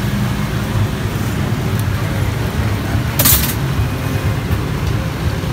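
Steady road traffic noise from a busy street, with a brief high hiss about three seconds in.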